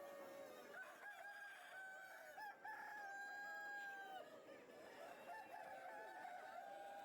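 Faint rooster crowing, with more than one crow running into each other; the longest crow is held for over a second near the middle.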